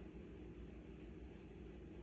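Near silence: faint steady room tone with a low hum, no distinct sounds.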